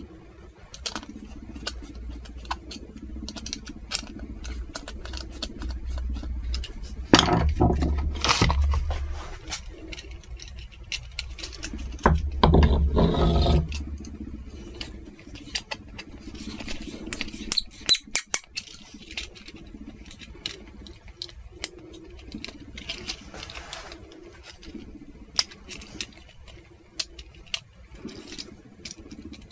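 A screwdriver working the screws and plastic body of a Schuko socket coupling: a run of small clicks, taps and scrapes. Two louder stretches of low noise come about seven and twelve seconds in.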